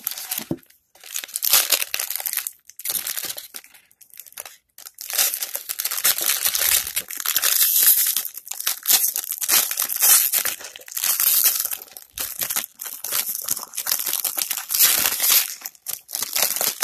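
Foil wrapper of a trading-card pack crinkling in irregular bursts as it is handled and opened.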